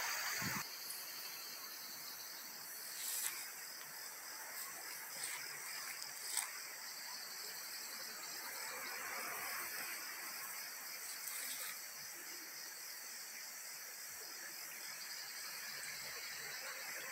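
Insects chirring steadily outdoors: a high-pitched, finely pulsing trill that runs on without a break. A couple of faint clicks come through about three and six seconds in.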